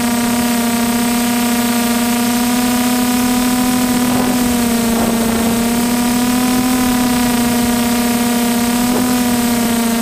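Multirotor drone's motors and propellers humming steadily at one pitch with a buzzy stack of overtones. The pitch sags slightly about halfway through, then recovers.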